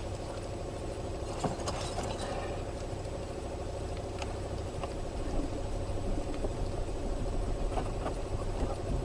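A steady low mechanical drone, like an engine running, with faint crinkles and ticks of protective plastic film being peeled off a perspex window panel.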